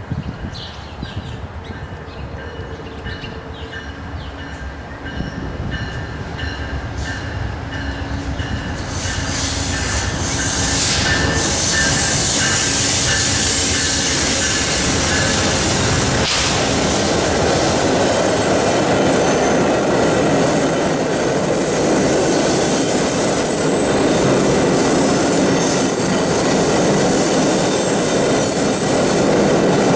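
Passenger train approaching and passing close by. The noise builds over the first ten seconds or so as the locomotive draws near and goes by. It then holds steady as the coaches roll past with continuous wheel-on-rail noise.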